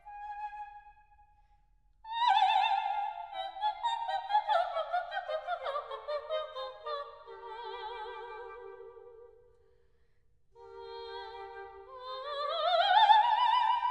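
Lyric soprano singing a coloratura opera passage with heavy vibrato: a descending run into a held lower note, a brief pause, then a slide up to a loud high note near the end.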